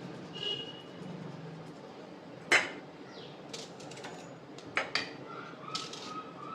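Scattered sharp clinks and knocks of dishes and cutlery being handled. The loudest comes about two and a half seconds in, with a quick pair a little before five seconds.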